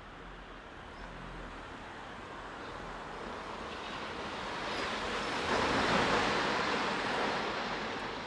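Concrete deck and rubble collapsing and sliding down as a CAT 374F UHD demolition excavator pulls the structure apart. A rushing rumble grows, is loudest around six seconds in, then eases.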